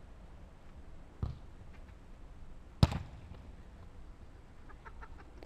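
Two thuds of a football being struck on the pitch, the second, just under three seconds in, much louder and sharper than the first.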